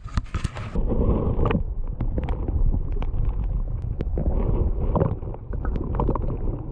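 Water and wind at the river surface for just under a second, then the muffled, low rushing sound of water heard from a camera underwater, with scattered clicks and knocks.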